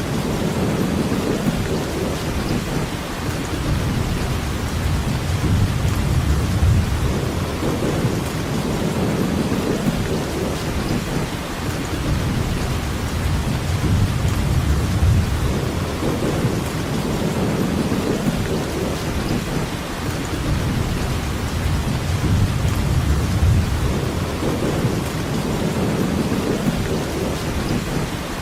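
Steady rainfall, an even hiss, over a low rumble that swells and fades every few seconds.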